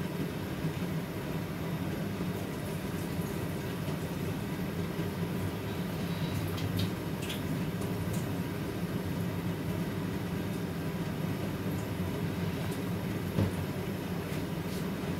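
Large aluminium pot of chicken and vegetable stock at a rolling boil on a gas stove: a steady low bubbling, with a few faint ticks about six or seven seconds in.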